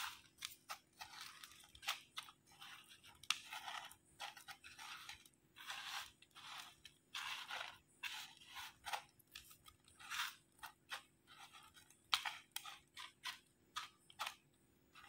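Crushed corn chips crackling and crunching under the fingers as a batter-coated bread piece is pressed and turned in them on a plate: quiet, irregular crisp crackles.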